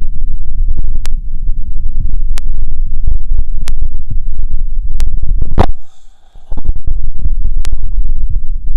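Heart sounds picked up through an electronic stethoscope: a dense low rumble with a sharp click about every 1.3 s. A little past halfway there is a loud crackle, then the sound drops out for under a second before the rumble and clicks return.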